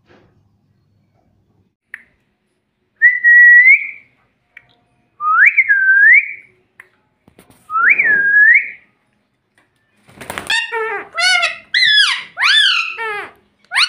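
Indian ringneck parrot whistling: three separate clear whistles that swoop up and down, then in the last few seconds a quick run of shrill, grating chatter calls.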